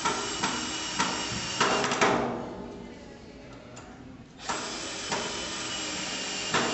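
Worx Switchdriver cordless drill-driver running a 2-inch lag screw into a pine batten at its lowest clutch setting. It runs in two bursts of a few seconds each with a pause between, and the first ends in a louder burst.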